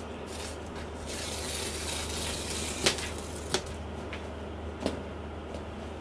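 Paper packaging of a MacBook Pro box being torn and rustled for about two seconds, then three sharp clicks, the first the loudest.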